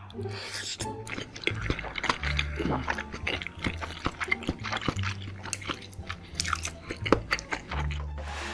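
Close-miked eating sounds: long noodle strands slurped in and chewed, with many short wet clicks and smacks of the mouth, over background music with held low notes.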